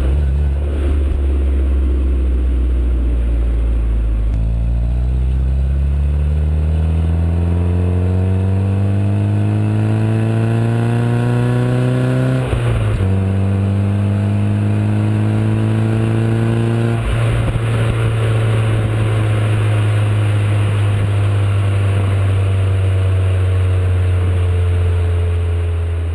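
Peugeot 205 GTI 1.9's four-cylinder engine and stock exhaust pulling hard through the gears: the revs climb steadily for several seconds, drop at a gear change about twelve seconds in, climb again, drop at a second shift around seventeen seconds, then hold and slowly ease off.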